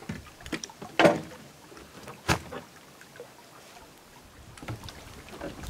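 Kayak and paddle knocking and scraping on a wooden launch ramp: a scrape about a second in, a sharp knock a little later, then a few faint taps.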